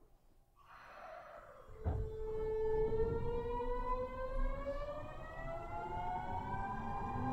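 Kyoto Municipal Subway 50 series train pulling away from a station: a short hiss and a thump, then the inverter and traction-motor whine, several tones together, rising steadily in pitch as the train accelerates.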